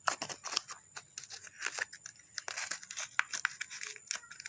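Sticky slime-like putty being squeezed and pulled apart by hand, making irregular crackles and sharp sticky ticks.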